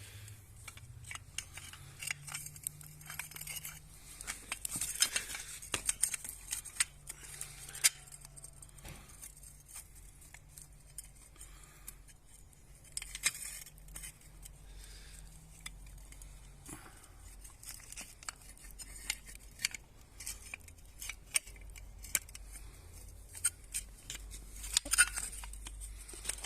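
Irregular small metallic clicks, taps and clinks of compressor parts being handled and fitted by hand during reassembly, busiest about five seconds in and again near the end.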